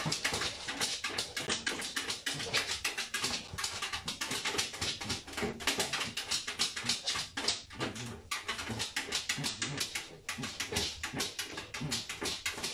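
Miniature dachshund pawing rapidly under a kitchen appliance, its claws scraping and clicking on the hard floor several times a second, with occasional whimpers.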